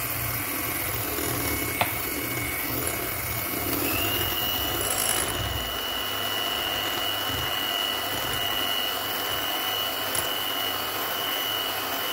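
Electric hand mixer running steadily, its twin beaters whisking eggs, sugar and oil into batter in a glass bowl. About four seconds in, a steady high whine joins the motor noise.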